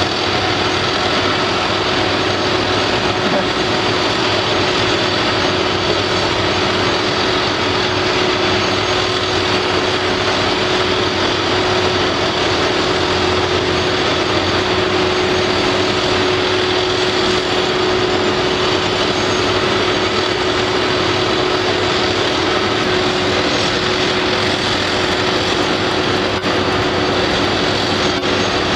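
Steady, even drone of heavy construction machinery running, with a constant mid-pitched hum over it.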